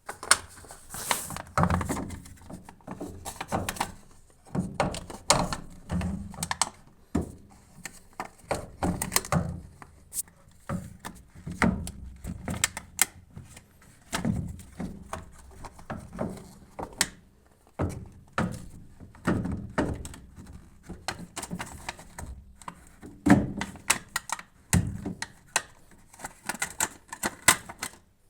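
Irregular knocks and clicks of plastic parts being handled and worked loose while the drain pump housing of a top-loading washing machine is taken apart, in a small room.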